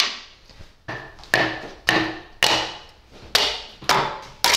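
Piston being tapped down through a steel ring compressor into a John Deere B cylinder bore with the butt of a wooden hammer handle. About seven sharp knocks, roughly two a second, some ringing briefly.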